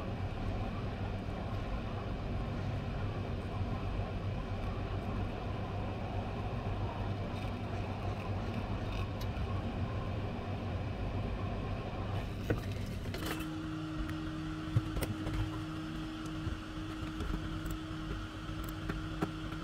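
Hot air rework station blowing steadily on a phone's MTK CPU at 300–330 °C to reflow its solder, a steady rush of air with a low hum. About 13 seconds in this gives way to a small square electric fan running with a steady whine, with a couple of sharp clicks.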